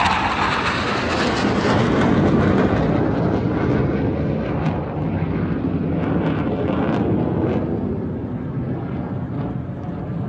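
Jet engine of a Suryakiran team BAE Hawk Mk132 trainer passing overhead, a loud rushing noise whose pitch drops at the start and which fades steadily as the aircraft moves away.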